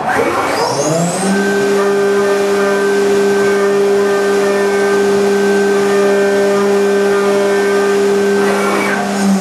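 Haas VF-2 CNC mill spindle spinning up in the first second, then holding a steady whine while its end mill cuts the eye-cover recess into a paintball marker body.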